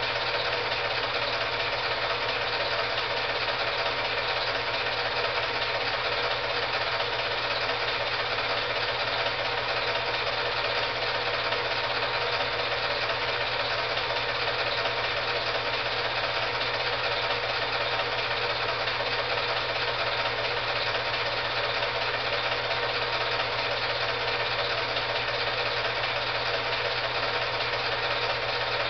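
Film projector running: a steady mechanical whirr and clatter with a constant low hum.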